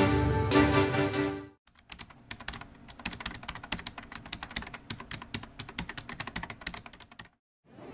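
Electronic intro music that cuts off about a second and a half in, followed by a rapid, irregular patter of computer-keyboard typing clicks, a typing sound effect, lasting about five and a half seconds.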